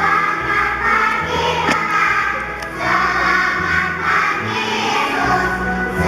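Kindergarten children's choir singing together over an accompaniment of steady low notes that change about once a second.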